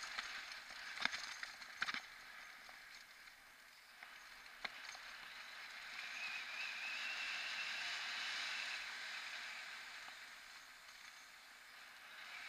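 Mountain bike rolling downhill on a paved road: steady tyre and wind hiss, with a few sharp clicks from the bike in the first five seconds and a faint high whine from about six to nine seconds in.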